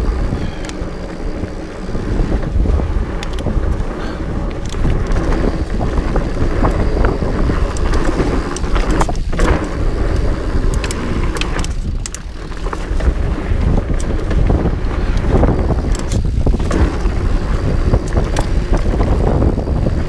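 Wind rushing over the on-bike camera microphone and the fat tyres of a Trek Farley EX 8 fatbike rolling down a dirt trail, a steady rumble with many sharp clicks and rattles as the bike goes over bumps.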